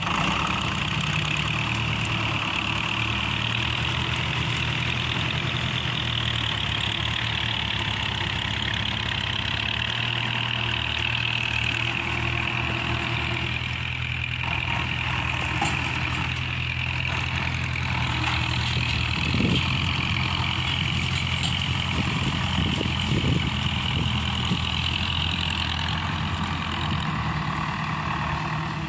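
David Brown 995 tractor's three-cylinder diesel engine running steadily under load as it drags a tined rake through cut brush. A few sharp cracks sound about two-thirds of the way through.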